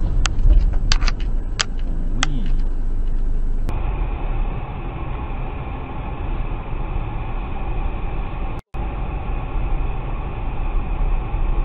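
Car driving, heard from inside through a dashcam: a steady low rumble of engine and road noise. A few sharp clicks come in the first few seconds, and the sound cuts out for an instant about two-thirds of the way through.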